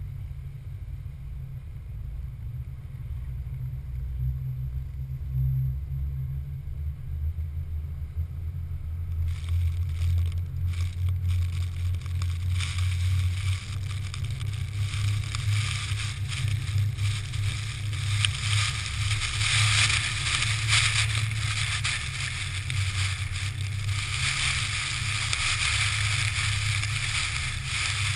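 Pickup truck on a Sno Trex track system driving through snow: a steady low rumble of engine and tracks with wind buffeting the microphone. About nine seconds in a hiss of wind and snow spray joins it and grows louder in the last third.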